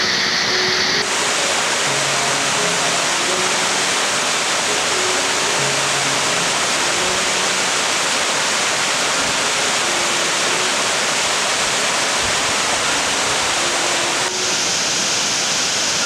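Steady rushing of a waterfall cascading over rock. Its tone changes abruptly about a second in and again near the end. Faint background music of short held low notes runs underneath.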